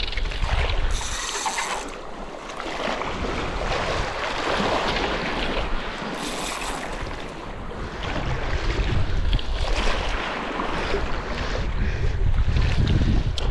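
Wind buffeting the microphone in gusts, over a steady rush of sea washing against the reef edge.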